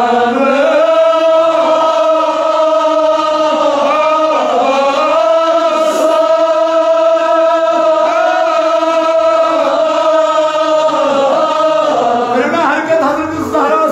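Men's voices chanting a Kashmiri marsiya, a mourning lament, together in long drawn-out notes that bend up and down, with short breaks between phrases about four and a half seconds in and near the end.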